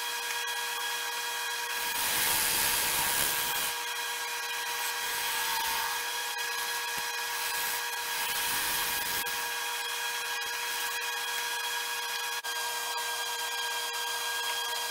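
Wood lathe running with a steady whine while something rubs against the spinning black walnut; the rubbing swells louder twice, about two and eight seconds in.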